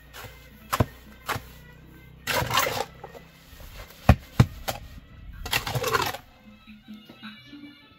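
A few sharp knocks and two brief scraping sounds, over soft background music. The knocks are like a blade striking a board during food preparation.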